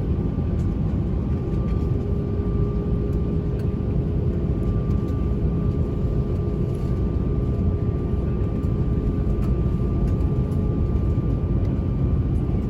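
Airbus A320 jet engines and airframe heard inside the cabin: a steady loud rumble with two steady whining tones above it, as the aircraft begins its takeoff.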